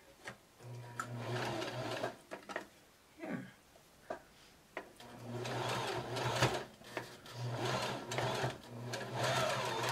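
Janome sewing machine stitching through layered quilt fabric in spurts. A short run starts about a second in and stops, and a longer run starts about halfway through, with brief pauses and changes of speed.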